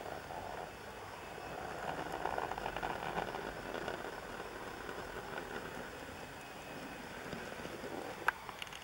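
Canon SX50 camera's zoom motor whirring as the lens zooms out, over a steady background hum, with a sharp click near the end.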